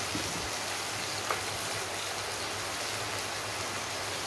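Oil sizzling steadily in a wok on a gas burner, with one light tap about a second in.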